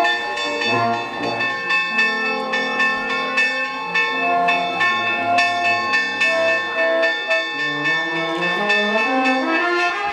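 Church bells ringing fast, struck about three or four times a second, their tones hanging on, over a brass band playing a slow melody.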